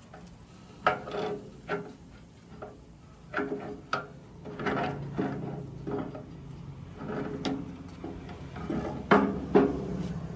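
Irregular knocks, clinks and scrapes of metal parts and tools being handled, about a dozen in a few seconds, some ringing briefly, with the loudest pair near the end.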